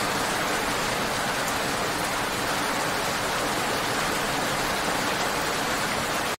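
Steady rain falling on wet asphalt pavement: an even hiss of many drops with no single loud impacts. It cuts off abruptly at the end.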